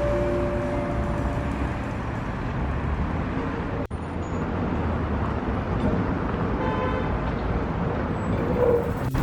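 Street traffic noise: a steady low rumble of passing cars, broken by two brief sudden dropouts.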